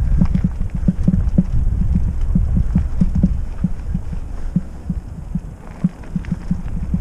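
Trek Roscoe 6 hardtail mountain bike riding over rough trail: a run of irregular low thumps and knocks as it bumps along, easing for a moment near the end before picking up again.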